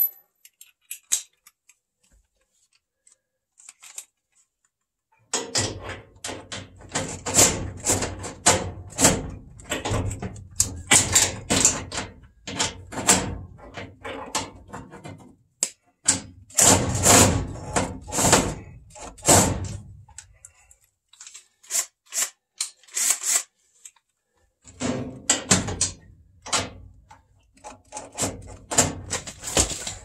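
Bursts of rapid metallic clicking and clattering from hand tools and bolts on a furnace's blower assembly, starting a few seconds in and stopping briefly twice.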